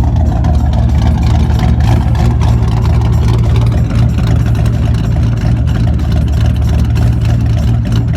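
Ford SN95 Mustang engine idling steadily through its exhaust. The idle steps up slightly about two to three seconds in, then holds.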